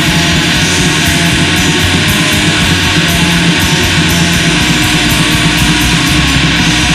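Black metal recording: a loud, dense, unbroken wall of distorted electric guitars and drums, with cymbal strokes beating at a steady pace.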